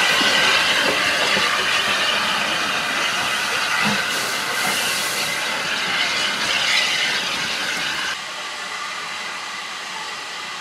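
Maunsell U class 2-6-0 steam locomotive No. 1638 moving off slowly, with a loud, steady hiss of steam from around its cylinders. The hiss drops to a quieter level about eight seconds in.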